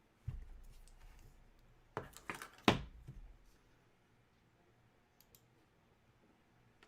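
A low thud, then a few sharp clicks and taps, the loudest about two and a half seconds in, followed by two faint ticks and quiet.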